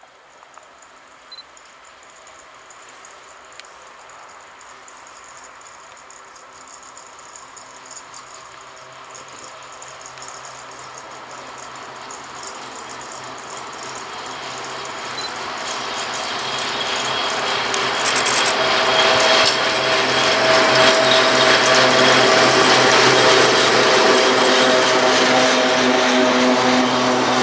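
Freight train approaching on the line, growing steadily louder for about twenty seconds into a dense rattling clatter of wheels and wagons over the rails, with several steady hums from the locomotive underneath.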